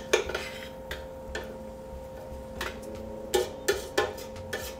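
Metal spoon knocking and scraping against a stainless-steel pot while stirring carrots and onions frying in oil: a run of sharp clinks, several in quick succession near the end, over a steady hum.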